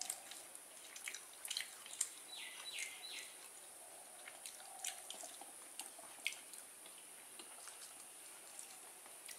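Faint, scattered small clicks and soft smacks of someone eating a meal of rice from a plate.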